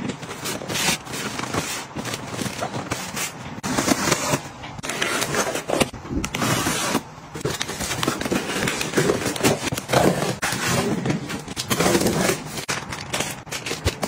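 Objects being handled and moved about close up: continuous rustling and scraping with many small clicks and knocks.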